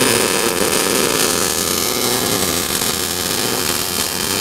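MIG welding arc crackling steadily as a bead is run, from an Eastwood MIG 175 wire-feed welder.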